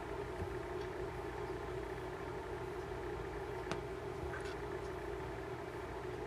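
A steady low hum that does not change, with a faint click about three and a half seconds in.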